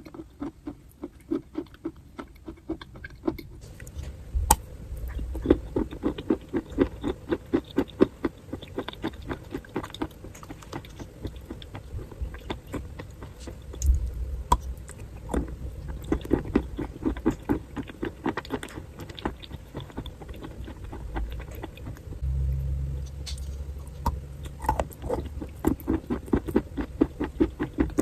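Close-miked chewing of a chalky, crunchy mouthful: quick, steady chewing strokes several times a second, with a few low thumps.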